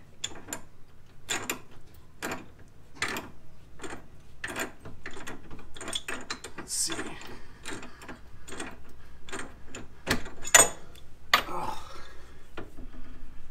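Small pipe wrench clicking and scraping on the large threaded nut of a UTV's factory tie rod, in repeated short strokes about a second apart, as a tight, awkward nut is worked loose.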